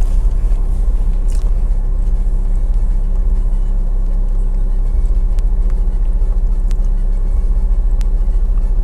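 A loud, steady low mechanical hum with a few faint clicks over it.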